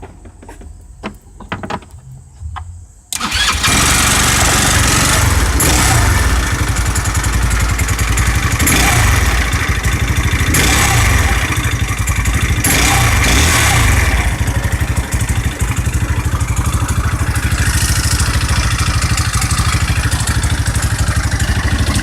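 Rebuilt 157QMJ 150cc GY6-type single-cylinder four-stroke scooter engine, freshly fitted with new crankshaft bearings, being started: a few short clicks, then it catches about three seconds in and runs steadily with a rapid beat, with a few brief blips of throttle. It runs without knocking.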